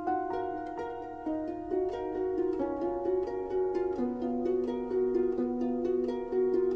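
Background instrumental music: a gentle melody of plucked string notes ringing over each other in a steady pulse.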